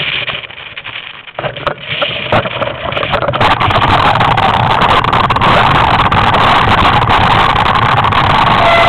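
Mountain bike clattering and knocking over a rocky trail, heard through a helmet-mounted camera. About three and a half seconds in, a loud steady rush of wind noise on the camera's microphone sets in and covers the rattle.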